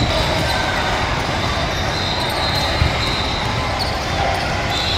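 Basketballs bouncing on an indoor court during a youth game, thumping now and then over the steady chatter and din of a large, echoing hall. A thin high tone sounds for about a second in the middle and again near the end.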